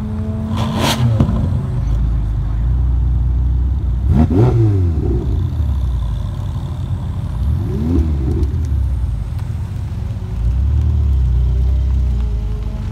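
Supercar engine idling with a deep steady rumble, blipped twice in quick revs that rise and fall about four seconds apart, after a short sharp crack about a second in.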